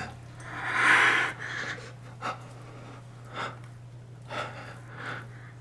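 Close-up breathing: one long breathy exhale about a second in, then four short, softer breaths, over a steady low hum.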